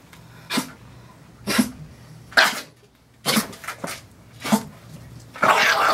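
A shih tzu makes a series of short, harsh vocal outbursts, about seven, roughly one a second, with the longest and loudest near the end. It is protesting against being held and handled.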